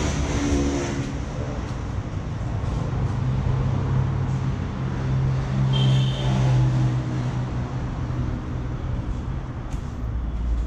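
Low, steady motor-vehicle rumble that swells through the middle and then eases off, with a brief high squeal at about six seconds.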